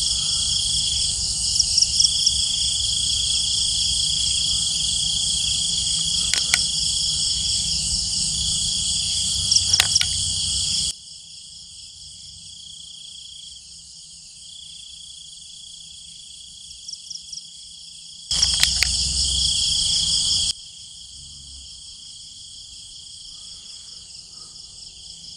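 Crickets chirping in a dense chorus at night: a steady high trill with faster, pulsing chirps on top. The chorus drops much quieter about 11 seconds in, comes back loud briefly around 18 seconds, then falls quiet again.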